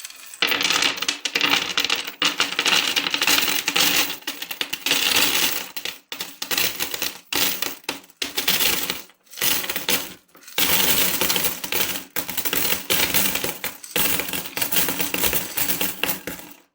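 Coins pouring and jingling against each other in a dense, continuous clatter, broken by a few short pauses.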